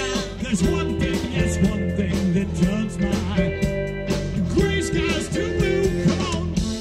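Live rock band playing: a male lead singer sings over electric bass and a steady drum beat.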